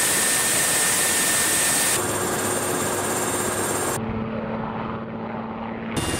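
Military transport helicopter's rotors and turbine engines running close by, a steady loud roar with a few steady whining tones. The tone changes abruptly about every two seconds, and is muffled for a couple of seconds near the end.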